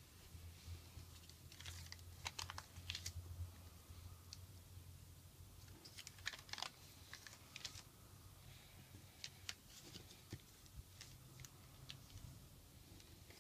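Sheet of origami paper being folded and creased by hand: short, crisp crackles and clicks in scattered clusters, over a faint low hum.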